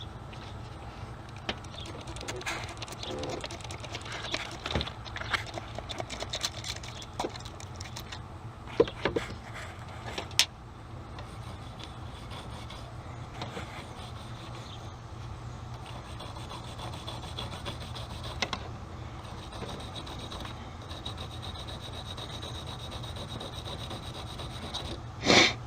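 Battery terminal wire brush scraping corrosion off a car battery terminal in short, irregular strokes, busiest over the first ten seconds or so and quieter after, over a steady low hum.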